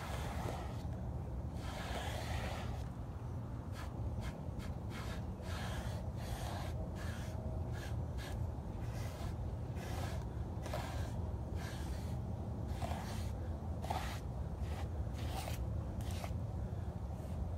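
Foam sponge brush stroking varnish across a stretched canvas: a run of short, quick brushing scrapes, several a second, over a steady low hum.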